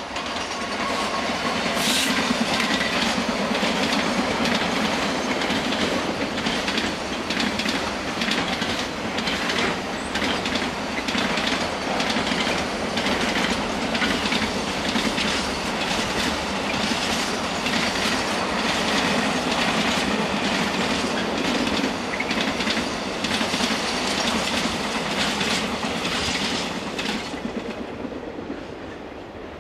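Class 66 diesel locomotive passing with a long container freight train, followed by the steady roll of the wagons with a rapid run of wheel clicks over the rail joints. The noise dies away near the end as the train recedes.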